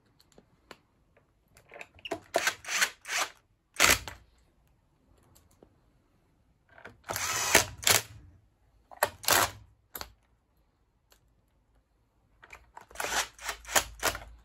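Cordless drill-driver running in several short bursts, driving screws into the plastic housing of a nail gun. The longest run comes near the middle, and each run has a thin high motor whine over rapid clicking.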